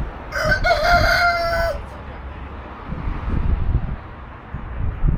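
Rooster crowing once, a single call of about a second and a half that rises at the start and then holds its pitch before breaking off.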